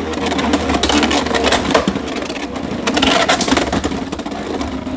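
Two Beyblade X spinning tops whirring in a plastic stadium just after launch, a steady hum broken by many sharp clacks as they collide.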